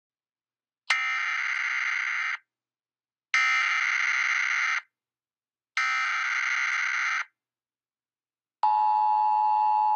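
Emergency Alert System broadcast tones: three raspy digital data bursts of about a second and a half each, a second apart, then the steady two-tone attention signal starting near the end.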